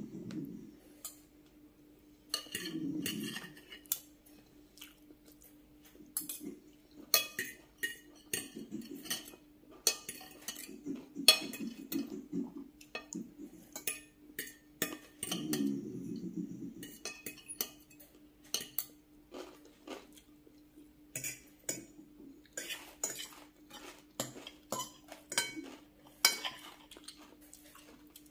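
Metal spoon, fork and knife clinking and scraping against glass dishes in many sharp, irregular clicks while rice and curry are eaten, with bouts of chewing in between.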